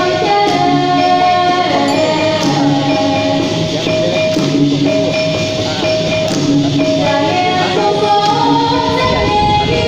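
Dikir barat song: a female lead singer singing through a microphone, held notes moving from one pitch to the next, over light hand percussion that keeps a steady beat.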